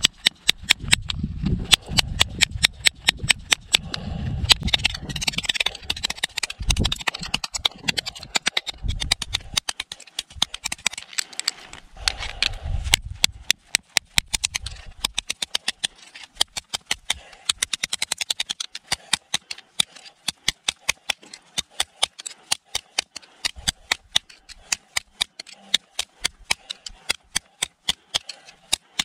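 Tip of a Cold Steel SR1 tanto knife's CPM S35VN steel blade stabbed again and again into a stone block: a long run of sharp clicking strikes, about two to three a second.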